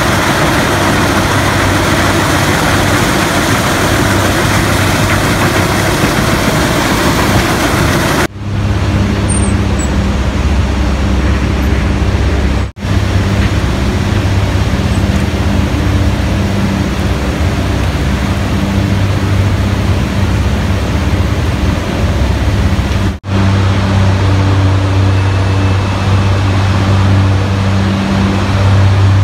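Loud, steady din of sugar-mill machinery in several short clips joined by abrupt cuts: first a broad rushing clatter at the cane feeder, then a deeper steady hum with a strong low drone from the cane conveyor and the machinery hall.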